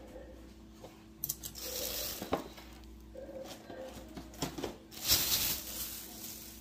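Raw meat cubes being picked up from a plate and pushed onto a bamboo skewer by hand: wet squishing and rustling handling noise with a few light clicks, the loudest rustle about five seconds in.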